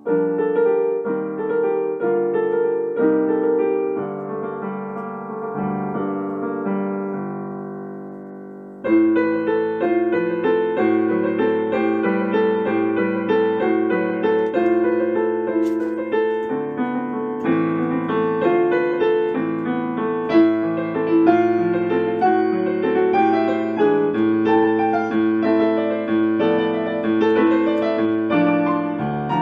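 Piano music: a steady flow of notes, with a louder, fuller passage starting about nine seconds in.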